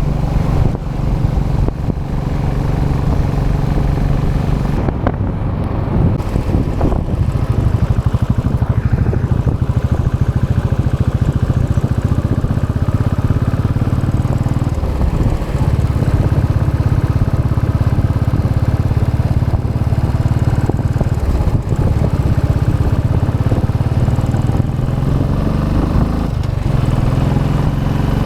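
Royal Enfield Classic 500 EFI's single-cylinder engine running through its stock exhaust while being ridden. Its pitch dips and climbs again several times with throttle and gear changes.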